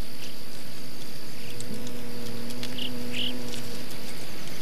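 Bumblebee buzzing, a steady low hum that sets in about a second and a half in and fades out near the end, over an outdoor hiss with a few short high chirps.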